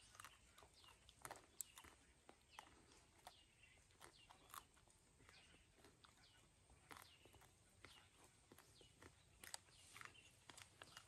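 Near silence outdoors, with faint scattered ticks and a few small short chirps spread through it.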